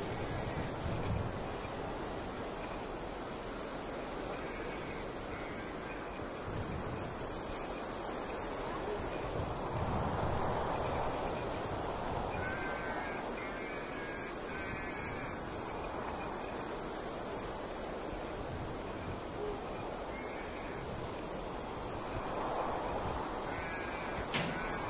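Night ambience of steady cricket chirring, with a soft, uneven low rumble underneath.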